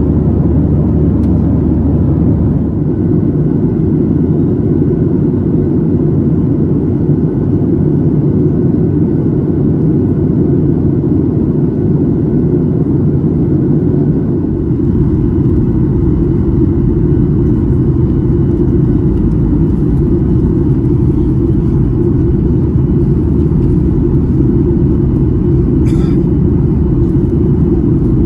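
Steady cabin roar of a Boeing 737-800 airliner in descent, heard from a seat over the wing: engine noise and airflow, mostly a deep rumble. Its higher part eases off about halfway through.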